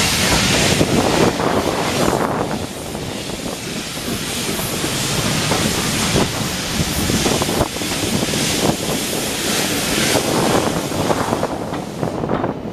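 Steam locomotive working its train away from a station, heard from an open carriage window: regular exhaust beats and the clatter of the carriage wheels, over steam hiss that is heaviest in the first two seconds.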